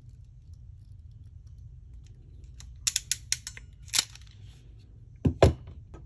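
Ratcheting crimping tool clicking as it crimps a male MC4 metal terminal onto a red solar wire: a quick run of sharp clicks a few seconds in, then one more click a second later. Two louder thumps follow near the end.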